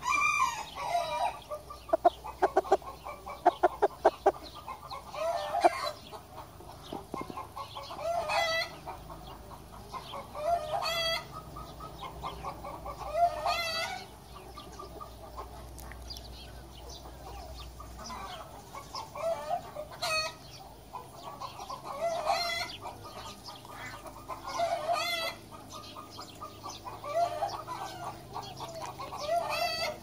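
Japanese bantam rooster calling repeatedly, short clucking calls coming about every two to three seconds, with a quick run of rapid clucks near the start.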